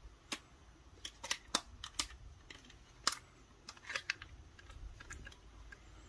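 Sony WM-FX1 cassette Walkman's metal-and-plastic casing being handled and its two halves pressed shut, giving a string of small, irregular clicks and taps, the sharpest about three seconds in.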